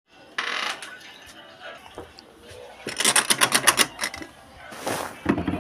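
A rapid run of about nine sharp clicks or taps lasting under a second, between two short bursts of rustling noise.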